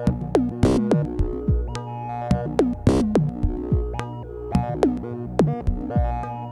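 Electronic dub music from dub-siren sounds on an Akemie's Taiko synth module: a quick series of pitched hits, each falling sharply in pitch, over a steady low drone. Two noisy, snare-like hits stand out, one near the start and one about halfway through.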